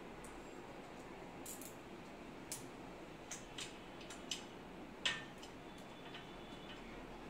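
Light, irregular clicks and taps of a metal TV wall-mount bracket being handled and adjusted on the wall, about seven in all, the loudest about five seconds in.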